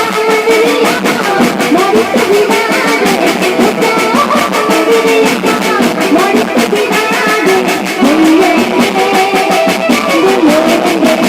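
Loud music with a fast, steady beat and a wavering melody line, perhaps with singing.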